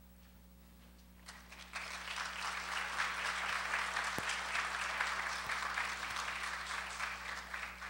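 Audience applauding. The clapping starts about a second and a half in, builds quickly, and thins out near the end.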